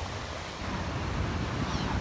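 Surf washing up on a beach, with wind rumbling on the microphone that gets louder about half a second in.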